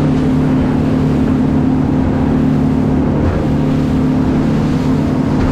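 Motorboat running at steady cruising speed: an even engine drone under the hiss of spray and water rushing past the hull.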